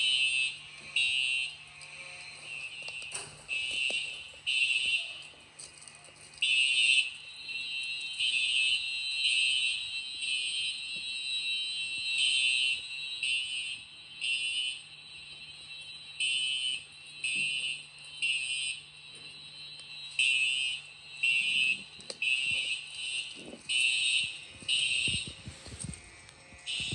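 Fire alarm sounding in short repeated blasts, about one a second, during a walk test of the system, with the blasts at times overlapping out of step.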